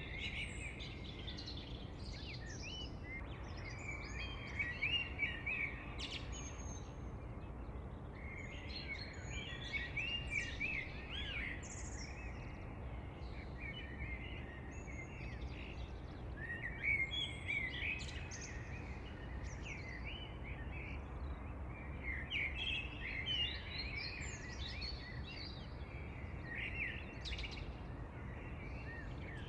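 Several songbirds singing and chirping in overlapping bursts of short, quick warbled phrases, over a steady low background hiss.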